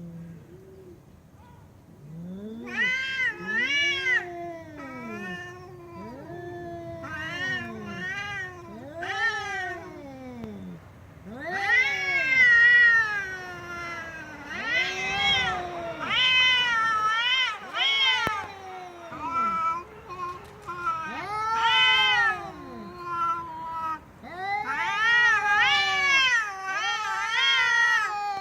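A cat meowing again and again in long, loud calls, each rising and then falling in pitch.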